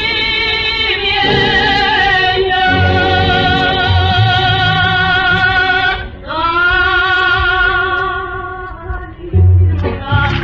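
Music: a singer holds long notes with vibrato over a low, pulsing instrumental accompaniment, with a short break about six seconds in.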